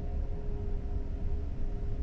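Steady low rumble with a constant hum, the onboard machinery noise of the ferry Hamayuu heard inside a passenger corridor while the ship is under way.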